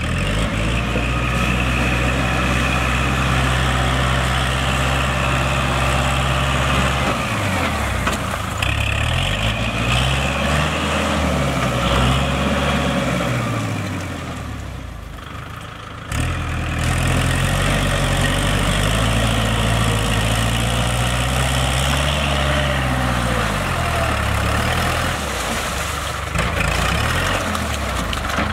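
Kubota tractor's diesel engine running steadily under load, its pitch rising and falling twice as the throttle is worked.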